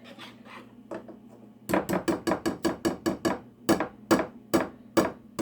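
Metal whisk clinking against the skillet as batter is beaten: a fast run of about six clinks a second starting a little under two seconds in, then slower strikes about two a second.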